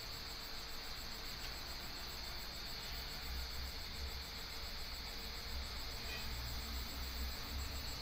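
Portabee 3D printer's extruder running as it pushes filament out of the hot end nozzle: a steady high-pitched whine over a low, uneven rumble.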